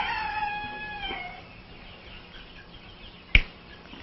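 A towel-wrapped hen gives one drawn-out call for about the first second and a half, then a single sharp click about three seconds in as clippers trim the tip of her bill.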